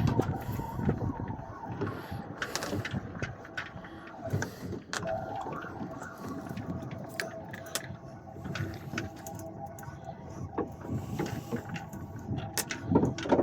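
Fishing reel being wound in steadily against a hooked fish, a whirring mechanical rattle full of small clicks, over a steady hum.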